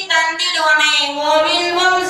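A high-pitched voice, a woman's or child's, singing a devotional song in long held notes that bend and waver in pitch.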